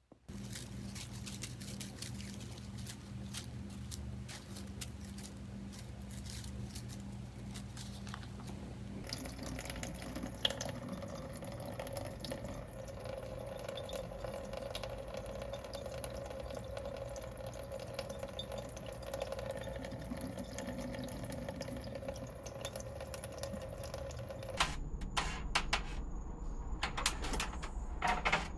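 Running water with many small drips and clicks, changing character twice: about a third of the way in and near the end.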